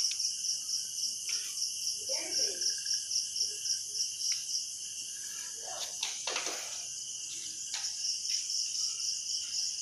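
Crickets chirping in a steady, high-pitched chorus that pulses about four to five times a second.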